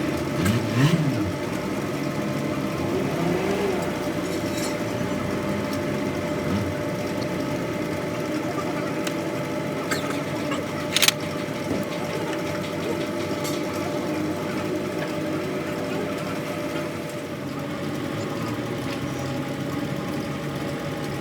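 An engine running steadily at an even pitch, with a short rise and fall near the start and a sharp click about eleven seconds in.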